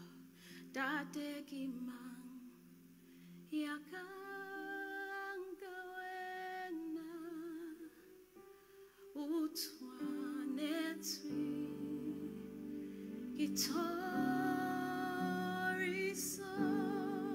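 A woman singing a slow worship song solo into a microphone, holding long notes with a wide vibrato and pausing briefly between phrases. Sustained low accompanying chords come in about eleven seconds in.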